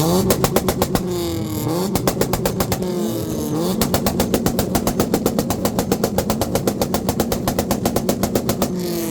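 Two cars, a Subaru STI and a Honda CRX, held on two-step launch control at the same time: both engines bounce off the limiter with rapid, rattling exhaust pops, several a second. The popping eases for a couple of seconds about a second in, then rattles on steadily until just before the end.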